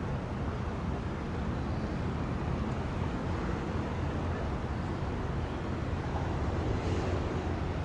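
Steady low drone of a passing vehicle carrier's engine, heard over an even rush of wind and sea.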